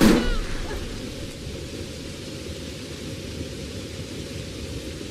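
A single gunshot right at the start, its low boom dying away within about half a second, followed by a steady hiss of rain.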